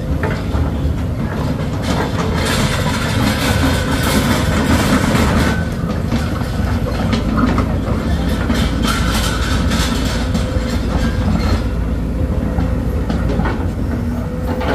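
Heavy diesel machinery running steadily, with a dense metallic rattle and clatter over the low rumble that thickens for a few seconds twice.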